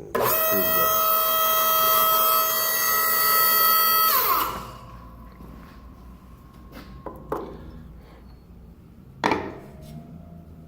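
Gates 707 hose crimper's electric-hydraulic pump starting abruptly and running with a steady whine for about four seconds, then shutting off and winding down in pitch as the crimp cycle ends. Two sharp clicks follow a few seconds later.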